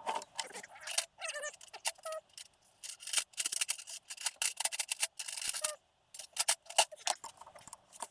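Metal tools and engine parts clinking, rattling and scraping in quick, irregular clicks as they are handled during an engine teardown.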